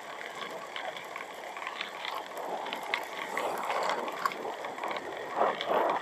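Wind and road noise from a Honda Vario motor scooter on the move, with scattered small clicks and knocks over the rough road.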